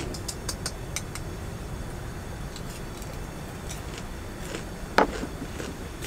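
Crispy fried chicken being bitten and chewed: scattered short crunches, a cluster in the first second and one much louder crunch about five seconds in, over a steady low rumble.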